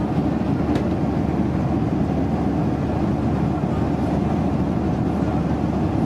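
Airliner cabin noise in flight: a steady, even low drone of engines and rushing air.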